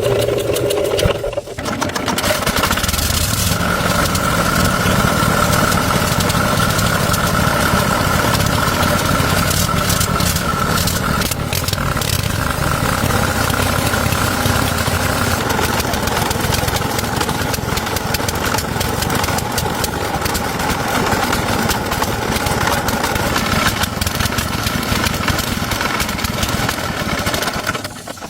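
Tractor engine starting: a short cranking sound, then it catches about two seconds in and runs steadily before cutting off abruptly near the end.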